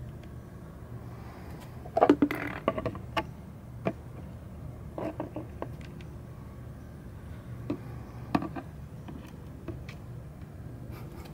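Hard plastic knocks and light clatter as a plastic bowl and a clear acrylic cage are handled. The loudest cluster of knocks comes about two seconds in, with scattered taps after it, over a steady low hum.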